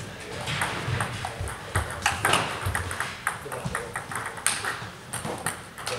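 Table tennis balls hitting bats and tables: a string of quick, irregular clicks from rallies at several tables.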